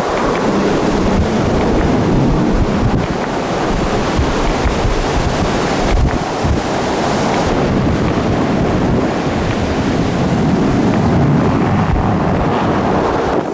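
Strong blizzard wind blasting across the microphone, a loud, steady rushing noise that surges and eases.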